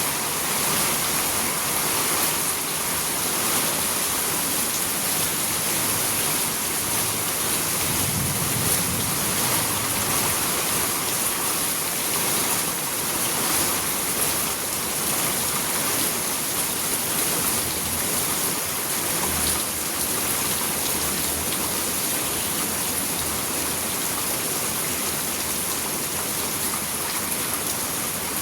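Steady rain falling: an even, unbroken hiss with many small drop impacts and no letup.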